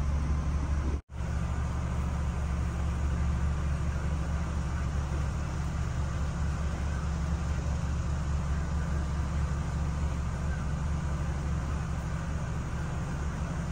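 The ferry's engine running steadily, a constant low drone with faint water and wind hiss over it. The sound cuts out for an instant about a second in.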